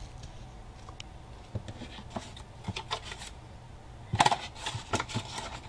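Cardstock being handled and folded: faint rustles and light taps, with a louder burst of paper crackling and clicks about four seconds in.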